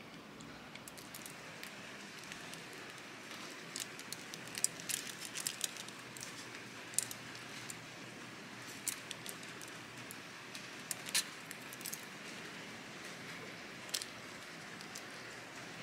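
Aluminium-foil wrapper of a dark chocolate bar crinkling and crackling as it is handled. The crackles are sharp and irregular, busiest a few seconds in, then come singly over a faint steady hiss.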